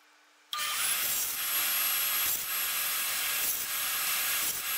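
Bandsaw running, its blade cutting plywood strips: a steady hiss with a thin high whine, coming in suddenly about half a second in.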